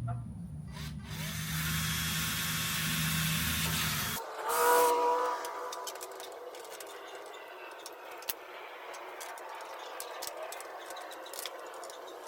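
Cordless drill running steadily for about three seconds while boring new mounting holes for a misaligned winglet, then cutting off abruptly. A brief louder pitched sound follows, then faint scattered clicks.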